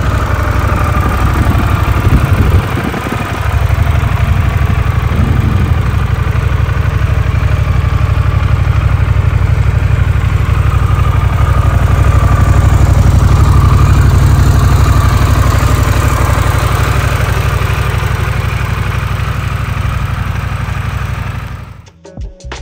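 Harley-Davidson CVO Pan America's Revolution Max 1250 V-twin engine idling steadily, with a brief unsettled spell about two seconds in. It cuts off near the end.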